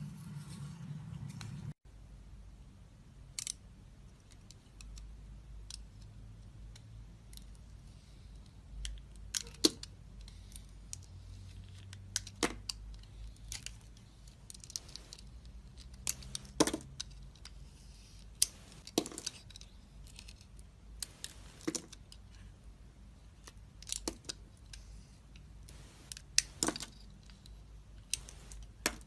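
Knife cutting and carving a bar of dried soap: irregular crisp crackling and scraping, with sharper snapping clicks every few seconds.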